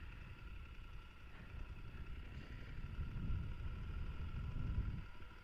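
Motorcycle running while being ridden, a low rough rumble with a faint steady whine above it; the rumble swells louder about three seconds in.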